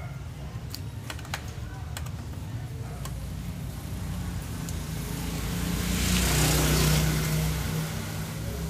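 A motor vehicle passing by: a low engine hum with a rising rush of road noise that grows to its loudest about six to seven seconds in, then fades.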